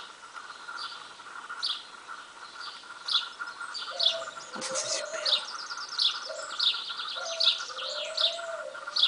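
Small garden birds chirping in short, high notes about once or twice a second. From about four seconds in, soft low wood pigeon coos join in, gliding up and down.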